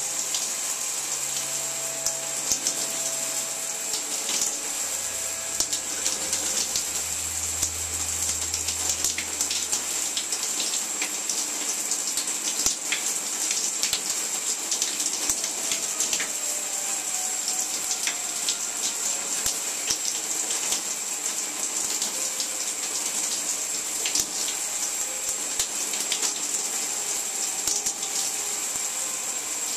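Shower water spraying from a wall-mounted shower head onto a person and tiled walls: a steady hiss with many small droplet crackles. A low hum sits under it for the first ten seconds or so.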